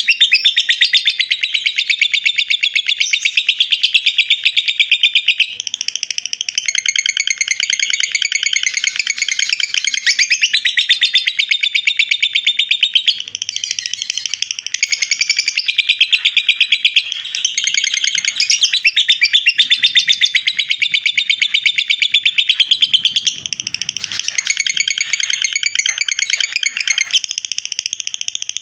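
Lovebird singing its long 'ngekek' song: a rapid, unbroken chattering trill that carries on the whole time, shifting every few seconds into a new phrase, loud and clear.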